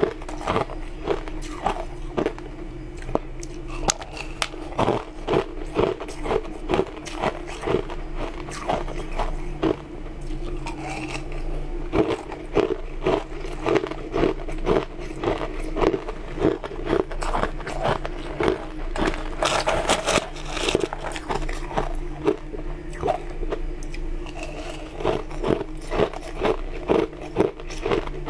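Blue-coloured ice chunks being bitten and chewed: many sharp, irregular crunches in quick succession. A steady low hum runs underneath.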